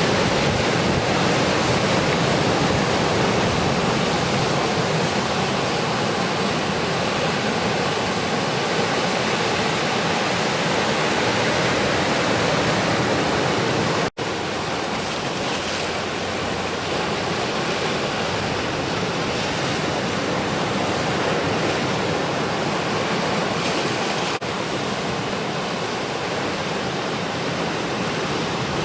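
Continuous roar of ocean surf breaking on a beach, steady and loud, cutting out for an instant about halfway through.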